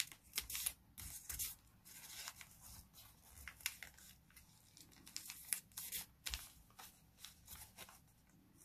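Sheet of colour paper rustling and crinkling in the hands as it is folded and creased, a string of short, irregular crackles.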